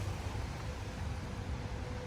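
Steady low rumble and hiss of outdoor city street noise, with a faint steady hum coming in about a second in.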